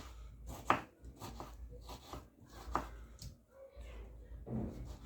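A kitchen knife dicing tomatoes on a chopping board: irregular chopping strokes knocking on the board, two of them louder than the rest.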